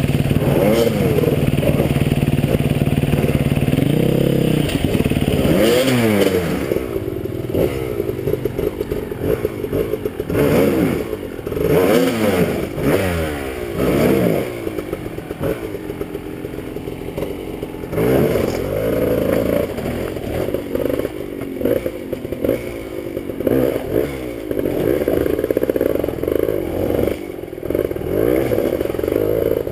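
Enduro motorcycle engines: one idling steadily for the first few seconds, then an engine revving up and down in repeated bursts as a bike is ridden up a steep rocky trail, with clattering and scraping of tyres and stones.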